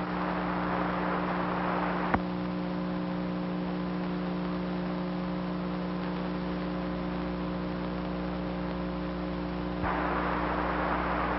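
Steady electrical mains hum with hiss on an open radio audio channel. There is a click about two seconds in, where the hiss drops, and another near the end, where the hiss comes back louder.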